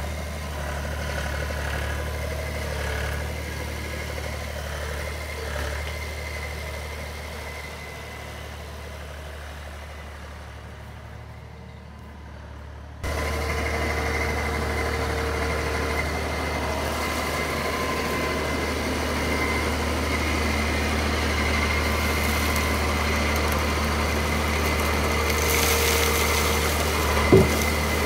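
John Deere skid steer loader's engine running steadily as it works with a bucket of wood chips, getting suddenly louder about halfway through. A sharp knock near the end.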